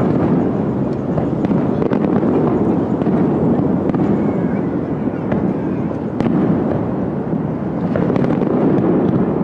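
Aerial fireworks going off, with sharp pops and cracks now and then over a loud, steady rushing rumble.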